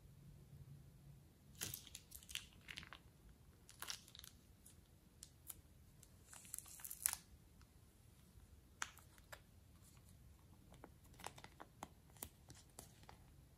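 Thin plastic piping bag crinkling and rustling as it is squeezed and handled, in scattered short bursts, the loudest about seven seconds in.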